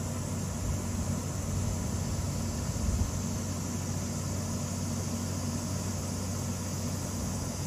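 Steady low mechanical hum like an idling engine, running evenly with no change.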